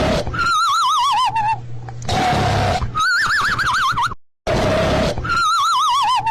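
Cartoon snoring sound effect: a rasping snore, then a wobbling whistle that slides down, another rasping snore, then a wobbling whistle that slides up. The cycle breaks off briefly about four seconds in and starts again.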